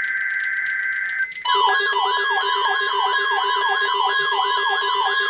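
Several NOAA weather radios receiving an emergency alert test. A buzzy, screeching burst of SAME digital header data lasts about a second, and then the radios' alarms start together: loud warbling, siren-like sweeps over a steady alert tone.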